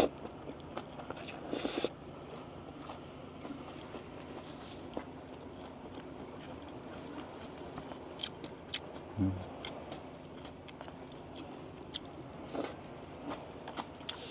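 A person eating noodles: a loud short slurp at the start, then chewing with scattered small clicks and smacks.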